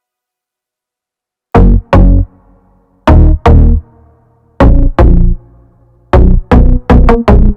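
Electronic background music: after a second and a half of silence, loud, deep drum-machine hits come in pairs and then pick up speed near the end.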